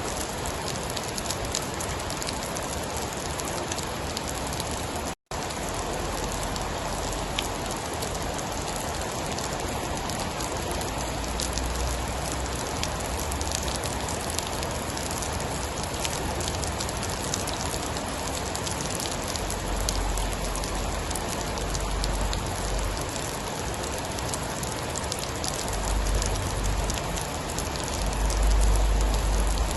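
Steady heavy rain with fine pattering drops, and low rumbles of distant thunder swelling several times, the loudest near the end. The sound cuts out for an instant about five seconds in.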